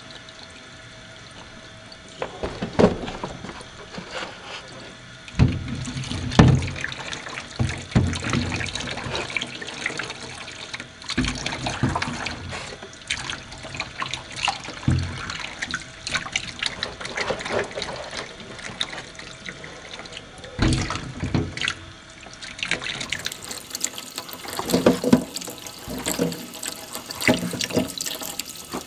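A thin stream of tap water running into a stainless steel sink as eggs are rubbed clean under it by hand. About two seconds in, irregular splashing and sharp clicks begin as the eggs are handled and set back down against the steel and against each other.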